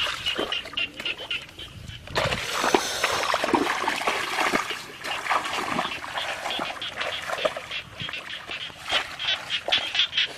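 Feet splashing and wading through shallow muddy water in a flooded rice paddy, against a rapid, evenly pulsing animal chorus that carries on throughout.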